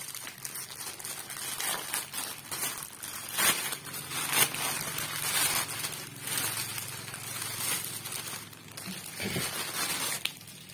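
Plastic courier mailer bag crinkling and tearing as it is ripped open by hand, with the sharpest, loudest crackles about three and a half and four and a half seconds in.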